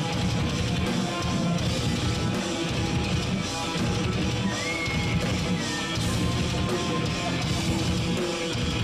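Heavy metal band playing live: distorted electric guitars and drum kit in a dense, steady riff, with no break and no vocals standing out.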